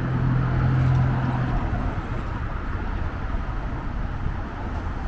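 Street traffic: a vehicle's low steady engine hum that fades out about a second and a half in, leaving a steady rumble of traffic.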